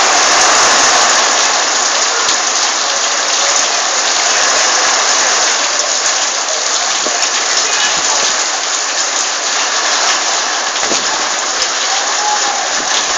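Heavy rain falling steadily: a loud, even hiss dotted with many small sharp drop taps.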